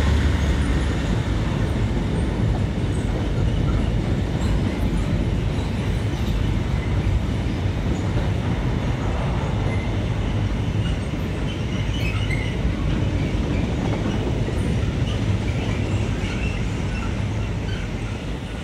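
Diesel train running through the station, its engine giving a steady low rumble with wheels clattering on the rails.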